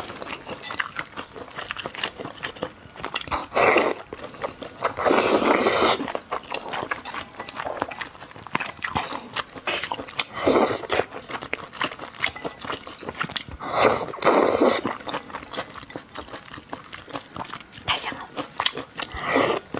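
Close-miked eating of chewy wide hot-pot glass noodles: wet chewing and smacking clicks throughout, with four loud slurps, at about 5 s, 10 s, 14 s and just before the end.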